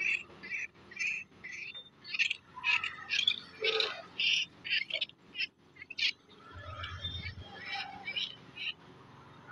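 Baby monkey crying with short, high-pitched squeals, two or three a second, growing weaker in the last few seconds.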